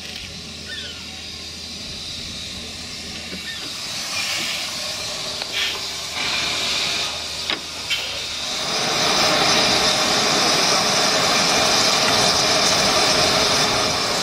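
15-inch-gauge miniature steam locomotive: a few light metallic clanks, then from a little past halfway a loud, steady hiss of escaping steam.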